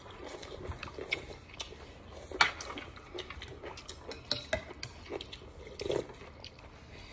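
A metal spoon clinking and scraping in a ceramic bowl of noodle soup, in scattered short clicks, the sharpest about two and a half seconds in. Near the end comes a short sip from the spoon.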